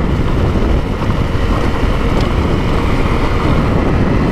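Dual-sport motorcycle riding along a gravel road: the engine running steadily under heavy wind rush on the microphone.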